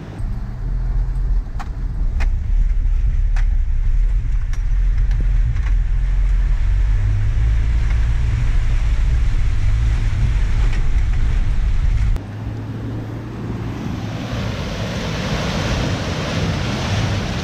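A 4x4 truck's engine running steadily under load as it crawls through a deep mud pit, with a few sharp knocks. About twelve seconds in the low engine sound drops away suddenly and a rising hiss of churning, splashing mud and water takes over.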